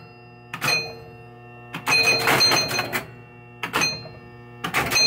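1976 Williams Grand Prix pinball machine scoring in four bursts as playfield switches are tripped by hand: its chime box rings clear tones amid the clatter of relays and score reels. A steady low hum runs underneath.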